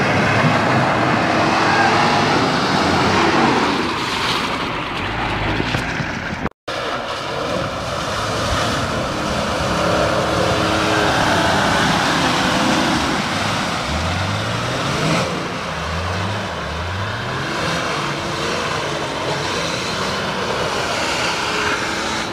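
Off-road 4x4 engine revving hard under load as it churns up a muddy slope; after a brief break about six and a half seconds in, a 4x4 engine running and revving through water, with several rising revs near the middle.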